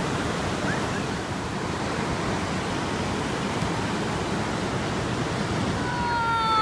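Ocean surf breaking on the beach: a steady, even rush of waves.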